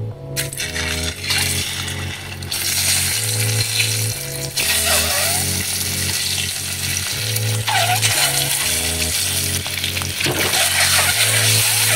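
Peeled boiled eggs sizzling in hot oil in a steel pan, a steady hiss that starts as the first egg goes in. A repeating low background-music melody plays under it.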